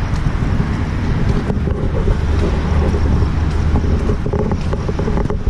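Wind buffeting the microphone: a loud, rough low rumble, with a steadier low drone for a couple of seconds in the middle.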